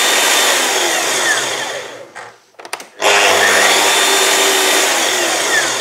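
Two Festool Kapex mitre saws, a KS 60 and a KS 120, running together at no load; both triggers are released about a second in and the motors wind down with a falling whine to a stop, then both are started again about three seconds in and wind down once more near the end. It is a run-down comparison, and to the owner the two come to a halt with no difference at all.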